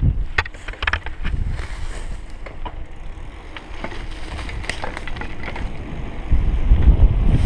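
Wind buffeting the microphone and tyre noise of a mountain bike coasting fast downhill on asphalt, with a cluster of sharp rattles and clicks from the bike in the first second or so. The wind rumble turns louder about six seconds in.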